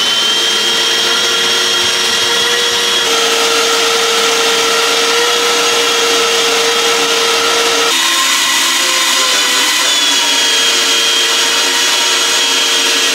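Vacuum cleaner motor running loud and steady, with a high whine that rises to speed just as it begins and shifts in pitch a couple of times, cleaning out the car's interior.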